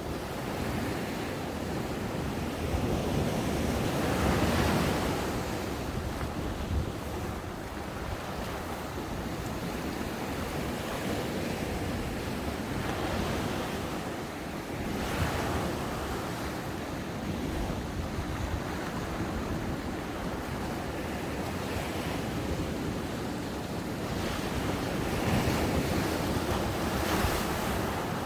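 Ocean waves breaking on a beach, a continuous surf wash that swells as each wave crashes, with the loudest swells about four seconds in, around thirteen to fifteen seconds, and near the end. Some wind noise on the microphone.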